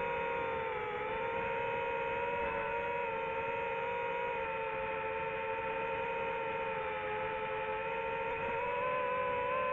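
DJI FPV drone's motors and propellers whining steadily in flight, the pitch dipping slightly about a second in and rising again near the end as the throttle changes.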